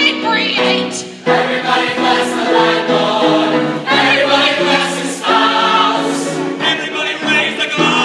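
A large mixed high school choir singing together in full chorus, holding notes in stacked chords with short breaks between phrases.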